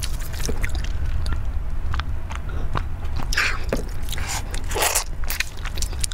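Close-miked eating: chewing and wet mouth clicks, with a plastic-gloved hand squelching through squid tentacles in a saucy marinade. The loudest squishes come about three and a half and five seconds in, over a steady low hum.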